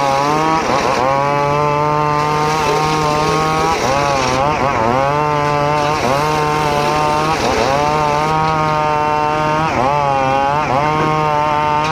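Homemade circular saw ripping mahogany: a loud, steady whine whose pitch sags and recovers several times as the blade bites into the wood and then frees up, over a steady low hum from the drive.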